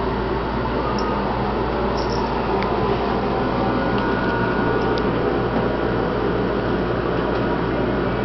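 Steady machine hum and hiss filling the room, with a few faint soft clicks.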